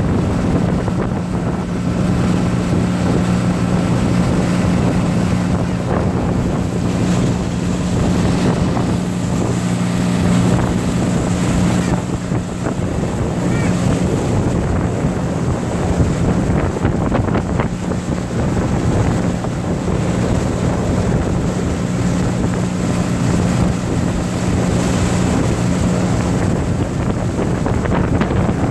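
Motor of a rigid inflatable boat under way, running with a steady low drone, with wind buffeting the microphone and water rushing and splashing past the hull.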